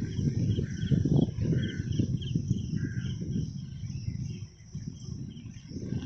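Wind buffeting the microphone and road rumble from a moving bicycle, easing off briefly about four and a half seconds in. Faint, repeated high-pitched chirping is heard over it.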